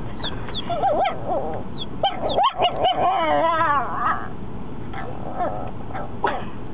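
A four-month-old Chihuahua puppy's first barks: short high yips, then a longer cry about three seconds in whose pitch wavers up and down, given with its head thrown back.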